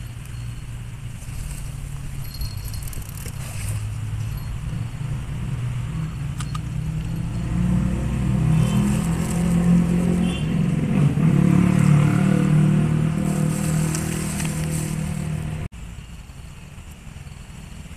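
A motor engine running with a low hum that slowly grows louder, then cuts off abruptly near the end.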